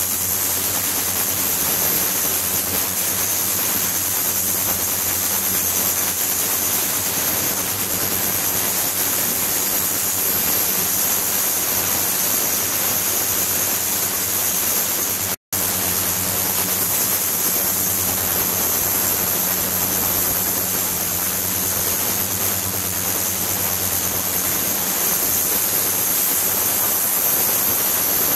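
Ultrasonic tank running with its liquid circulating: a steady hiss with a low hum and a high whine, cutting out for an instant about halfway.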